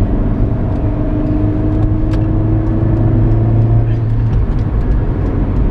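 Engine and road noise inside a moving vehicle's cabin: a steady engine drone that rises slightly in pitch, then eases off about four seconds in, over a constant low rumble.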